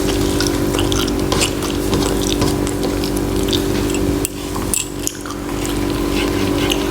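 Close-up eating sounds of someone eating rice with egg curry: wet chewing, lip smacks and small clicks at an irregular pace. Under them runs a steady low hum that dips briefly about four seconds in.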